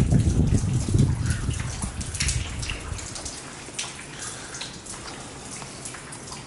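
Heavy rain falling and dripping, with many small sharp drip ticks over a steady hiss. A low rumble sits under it for the first two and a half seconds or so.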